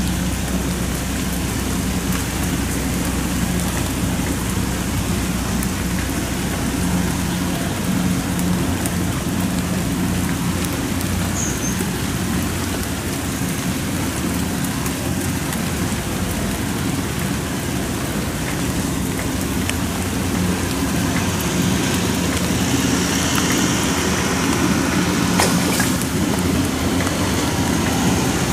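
Steady rain falling, with the Kubota DC108X rice combine harvester's diesel engine running steadily underneath as it cuts rice.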